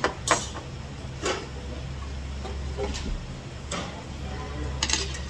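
Metal chopsticks and spoon clinking against a stainless steel bowl while eating: several separate sharp clinks, over a low steady hum.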